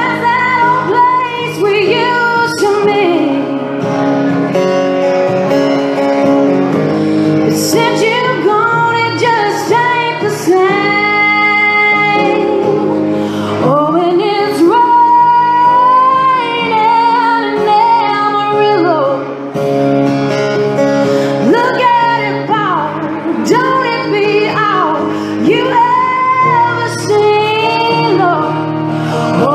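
A woman singing live with acoustic guitar accompaniment, her voice carrying the melody over steady held chords.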